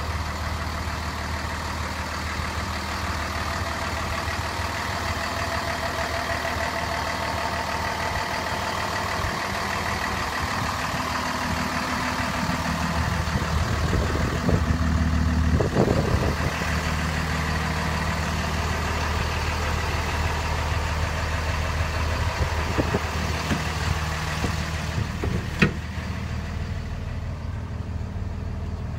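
A 2011 Kenworth T370's PACCAR PX-6 inline-six diesel idling steadily, with a few knocks around the middle and one sharp click near the end.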